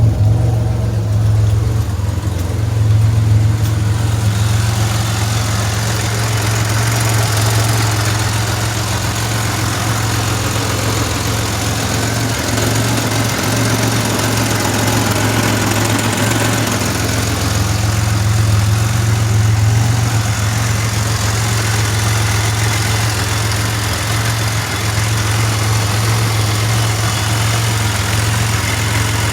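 Pontiac Grand Prix engine idling steadily, a constant low hum close to the microphone.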